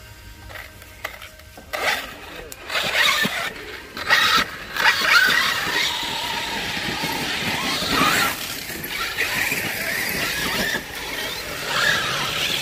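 Radio-controlled crawler truck driving over the trail: its small electric motor and geared drivetrain whine, mixed with a rough, uneven noise. It starts about two seconds in and then keeps going steadily.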